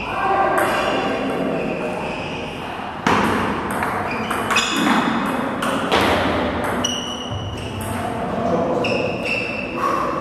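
Table tennis ball being struck by the players' bats and bouncing on the table in a rally, a quick series of sharp hits around the middle.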